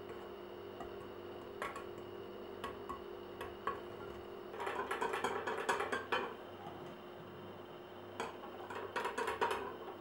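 Wire whisk beating batter in a glass bowl: rapid clicking and scraping of the wires against the glass in two bursts, about five seconds in and again near the end, with a few single light clinks before them.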